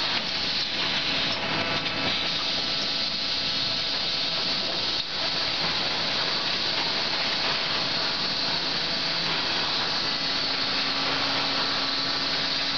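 Automatic packaging machine with a pick-and-place gripper running: a steady hiss over a constant machine hum, with a single light knock about five seconds in.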